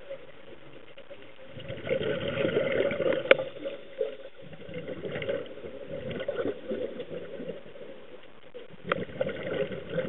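Scuba regulator exhaust bubbling underwater during exhalations: a loud rush of bubbles about a second and a half in with a sharp click in the middle, a weaker stretch after it, and another rush starting near the end.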